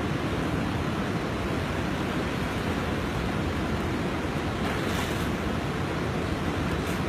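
Steady, continuous rushing of fast-flowing river floodwater, with a brief brighter hiss about five seconds in.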